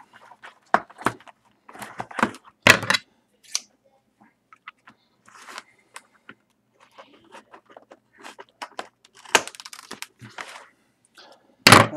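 A sealed Trilogy hockey card box being torn open and its packs pulled out: short tearing and crinkling of wrapping and cardboard with scattered clicks and scrapes. The loudest rips come about three seconds in and right at the end.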